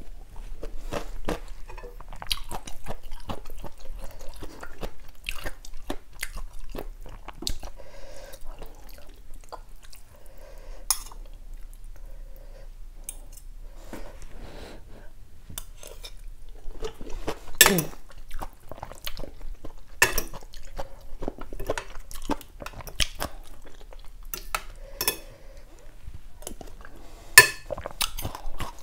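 A person chewing mouthfuls of noodle soup close to a clip-on microphone, with a metal spoon and fork clinking against the bowl now and then. The sharpest clinks come a little past halfway and again near the end.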